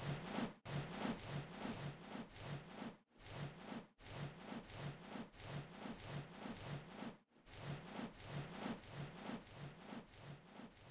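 Rhythmic rasping, rubbing strokes, about three a second, in runs broken by a few brief pauses.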